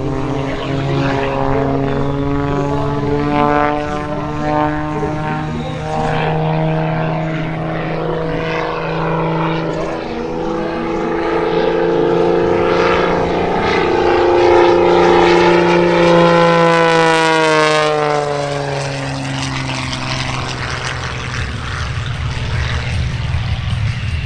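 Propeller airplane engine running at high power as the aircraft flies by. It grows louder toward the middle, then its pitch drops as it passes and it fades.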